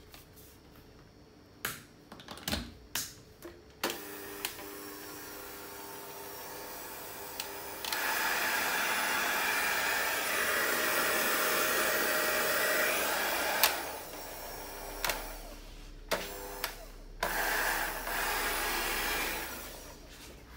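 Bosch CNHR22 hand mixer's electric motor running with no beaters fitted. It starts at a low speed about four seconds in and steps up to a louder, faster speed about eight seconds in. It is switched off with clicks of the switch and plastic handling, then runs once more briefly and winds down.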